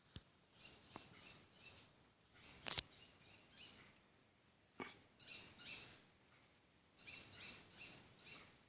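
A bird calling: short runs of four or five high chirps, repeated several times. A few sharp clicks or snaps are mixed in, the loudest a little under three seconds in.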